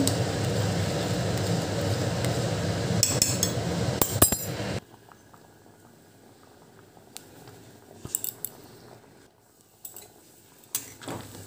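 Metal spoon clinking and scraping against a pan of ghugni as it is stirred, a few clinks at a time. A steady low rushing noise fills roughly the first five seconds and cuts off suddenly, leaving the later clinks faint.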